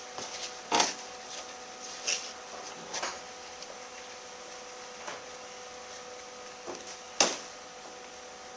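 Occasional light knocks and clatters of shop work over a steady hum, with one sharper knock near the end.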